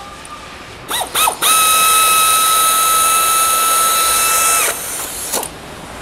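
Hand-held power tool running bolts into a cutter pump's back plate. Two short trigger blips rising in pitch about a second in, then a steady high whine for about three seconds that cuts off, and one brief burst shortly after.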